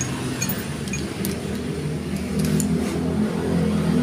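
A motor vehicle engine running, a steady low hum that grows a little louder toward the end, with a few faint metallic clicks as the brake pads are worked into the motorcycle's front disc-brake caliper.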